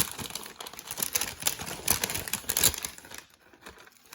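Hands handling and unwrapping packaging: crinkling and rustling with quick clicks and taps. It dies down about three seconds in.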